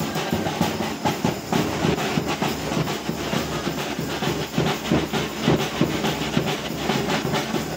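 Christmas carol band's drum played in a quick, steady rhythm, with jingling hand percussion and clapping along.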